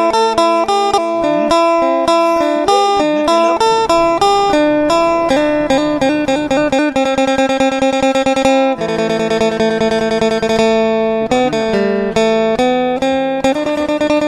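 Instrumental background music: a plucked string instrument playing a quick run of picked notes, some of them bent.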